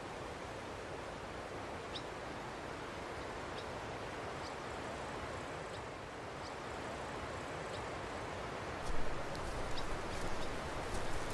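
Open-field outdoor ambience: a steady wind-like hiss with faint, short, high chirps about once a second. From about nine seconds in, louder rustling with a low rumble and scattered crackles.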